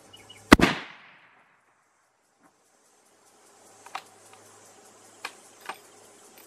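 A single very loud shot from a .375 CheyTac Improved rifle about half a second in, its report trailing off over about half a second. A few seconds later come three or four sharp clicks as the bolt is worked.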